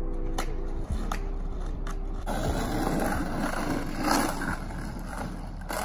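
Skateboard wheels rolling on rough asphalt with a steady low rumble, and a few sharp clacks of the board in the first two seconds. From about two seconds in, the rolling sounds rougher and fuller.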